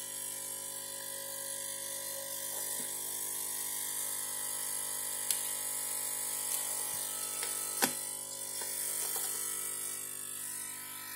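A steady buzzing hum made of many even tones, with a few sharp clicks about five and eight seconds in.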